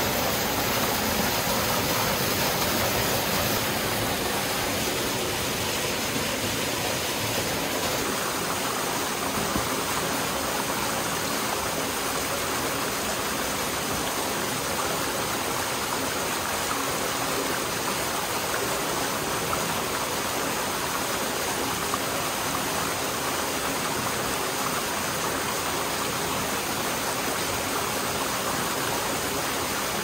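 Small waterfall pouring into a shallow rock pool: a steady rush and splash of falling water.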